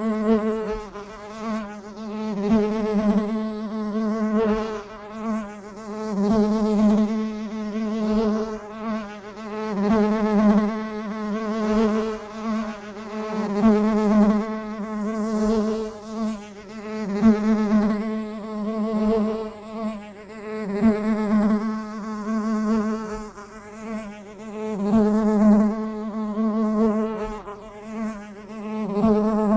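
A bee buzzing at one steady low pitch, its loudness swelling and fading every two to three seconds.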